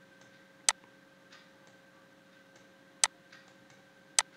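Three sharp computer mouse clicks, with a few much fainter ticks between them, over a faint steady electrical hum.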